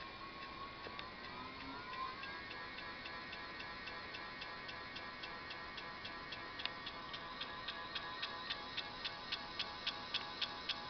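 Crystalyte 5304 direct-drive hub motor spinning freely on a Lyen 24-FET controller, with an electronic whine that rises in pitch as it speeds up over the first two seconds and then holds steady. A regular tick, about three a second, runs along with it and gets louder in the second half.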